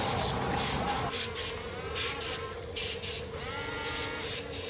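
RC bulldozer's small electric motors whining, their pitch rising and falling briefly a couple of times, over a steady hum and a high, pulsing, insect-like buzz.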